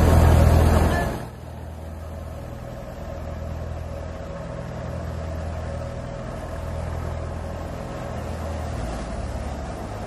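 Steady low engine drone of a wheat threshing machine running while sheaves are carried to it and fed in. It is louder for about the first second, then drops and holds steady.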